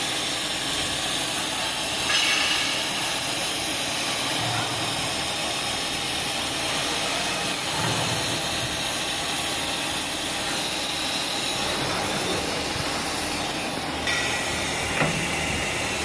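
CNC profile machining center with a BT40 spindle machining an aluminium profile under coolant spray: a steady, even hissing machine noise.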